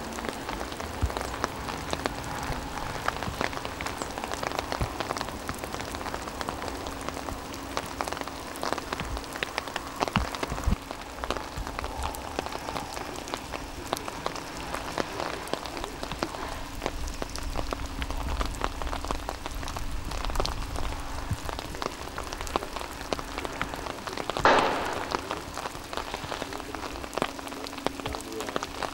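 Steady rainfall, with many individual drops clicking sharply over a continuous hiss, and a faint steady hum underneath. A brief, louder rush of noise comes about twenty-four seconds in.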